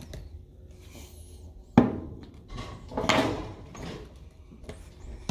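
Household knocking and clatter: a sharp knock about two seconds in, then a longer rattle about a second later.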